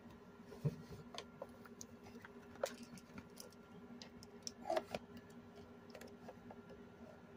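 Scattered light clicks and taps of small objects being picked up and handled, irregular rather than rhythmic, the sharpest about a second in, near the middle and just before five seconds, over a faint steady hum.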